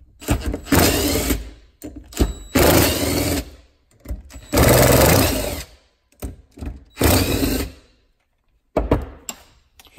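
DeWalt 20V cordless drill/driver running in four bursts of about a second each, backing out the four bolts that hold the impeller housing on a raw water pump. A sharp clack near the end.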